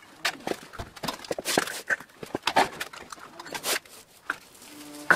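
An old steel bicycle being turned upside down onto its saddle and handlebars: a run of clattering knocks and rattles from the frame, mudguards and wheels. Near the end, a calf lows in the background.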